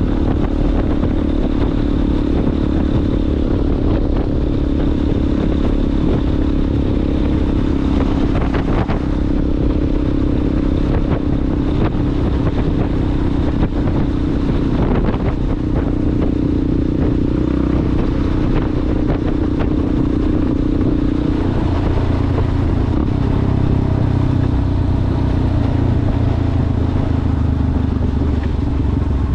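Yamaha Ténéré motorcycle with a Coyote aftermarket exhaust running under way on a dirt track. The engine note holds steady for long stretches and changes pitch a few times as the throttle and gears change.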